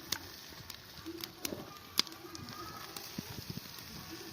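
Potato and carrot pieces frying in hot oil in a kadai: a steady sizzle with scattered sharp crackles, the loudest about two seconds in. A bird calls softly in the background.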